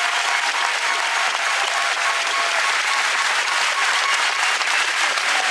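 Large crowd of spectators applauding steadily.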